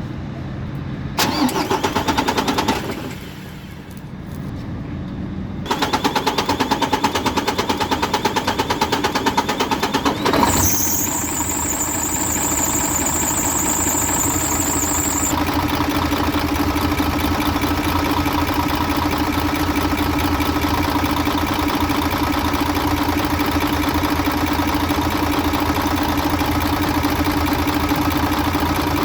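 Mercedes Actros MP2 truck's diesel engine being cranked by the starter twice, a short burst and then a longer one, before it catches about ten seconds in and settles into a steady idle. The long cranking is the hard-starting fault. A high steady tone sounds for about five seconds after it starts.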